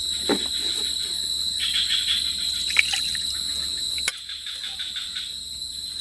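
Forest insects chirring in a steady, high-pitched tone with rapid pulsing; the sound drops a little in level about four seconds in.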